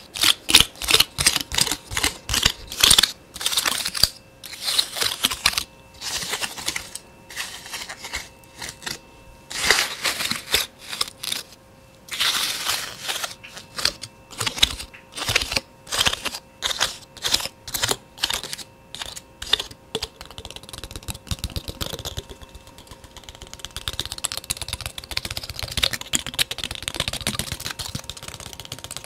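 Fast ASMR tapping: quick, sharp taps at about three to four a second in uneven runs, turning about twenty seconds in to a denser, softer patter of fine taps.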